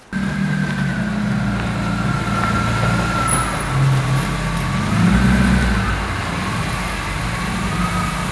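Car engine running while driving, a steady low drone with a thin high whine that wavers in pitch above it.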